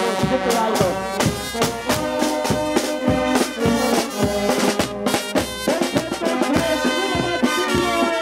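Marching band playing live at close range: trombones, baritone horn, trumpet, saxophones and clarinets carrying a tune over a steady drum beat.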